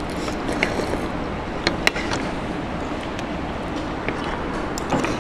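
A few light, sharp clinks of metal forks and spoons against bowls and plates while eating, over a steady background hum.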